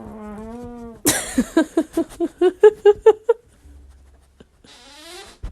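Flatulence: a long wavering tonal fart, then a sputtering run of rapid fart pulses that climbs in pitch, with a faint rising squeak near the end.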